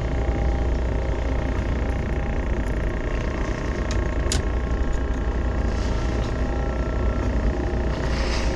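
Steady low mechanical drone of engine machinery, with faint steady hum tones over it and a light click about four seconds in.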